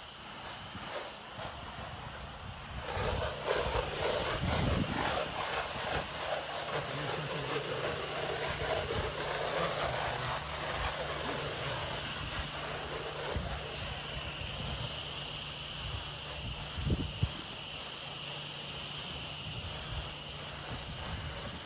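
Soft-wash spray nozzle hissing steadily as it throws a long stream of cleaning solution, getting louder about three seconds in, over a steady low hum.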